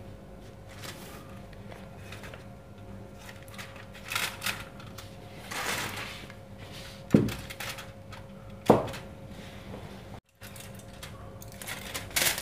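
Cloth towel rustling as it is unwrapped, then aluminium foil crinkling as it is peeled off a baking dish, with two sharp knocks of the dish about a second and a half apart.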